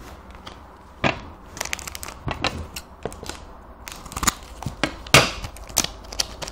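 Foil wrapper of a trading-card pack being torn open and crinkled by hand: a run of sharp, irregular crackles and rustles that starts about a second in and is loudest about five seconds in.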